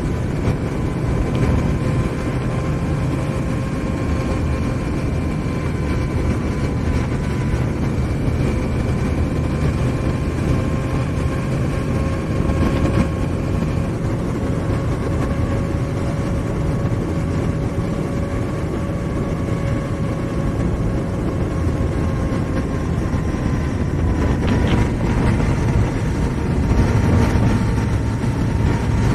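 2018 Honda Africa Twin Adventure Sport's parallel-twin engine running at a steady cruise, with wind and road noise and a faint steady whine that drifts slowly in pitch.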